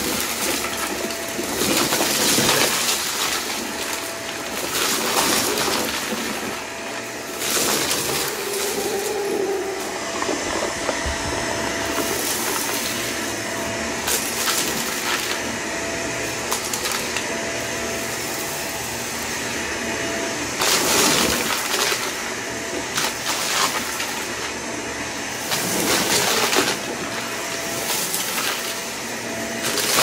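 Hoover vacuum cleaner running and sucking up a test mess of debris, with a steady whine that comes and goes and repeated surges of rattling every few seconds as debris is drawn in.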